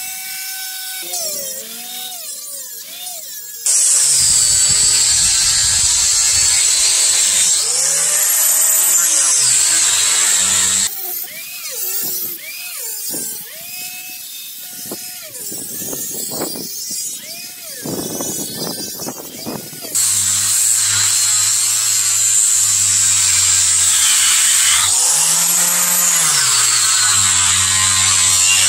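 Handheld electric orbital sander with a round sanding disc running against a wooden pillar, taking the weathered black surface off the wood. It runs loud in two long spells, the first starting about four seconds in and the second about two-thirds of the way through, with quieter stretches between.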